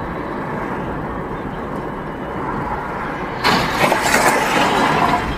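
Dashcam recording of a car driving, with steady road and engine noise. About three and a half seconds in, a sudden loud hissing, scraping rush lasts about two seconds, then stops.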